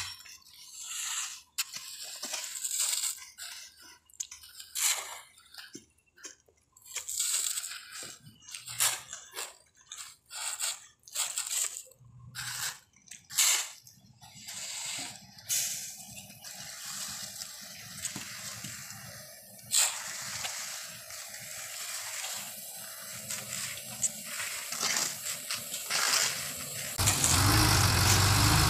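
Long-handled tools scraping and pushing a wet cement mix across a concrete surface in irregular strokes. Near the end a truck engine starts up loud and runs.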